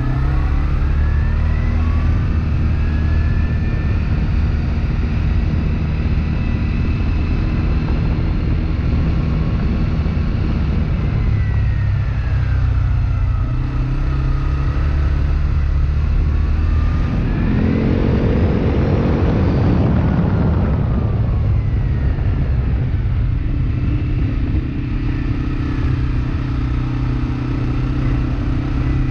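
ATV engine running under way close to the microphone, its pitch rising as it speeds up at the start and again about two-thirds through, and falling as it eases off in between and afterwards.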